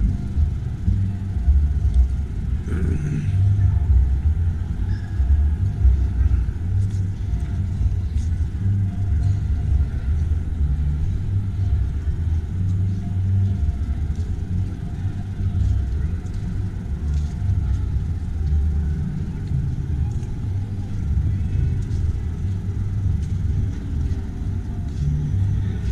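Low, uneven rumble of handling and air noise on a camera microphone as the camera is carried along.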